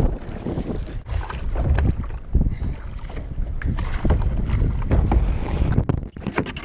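Wind buffeting the microphone and water splashing around a sit-on-top kayak as it is paddled, with irregular splashes from the paddle strokes and water washing over the camera near the end.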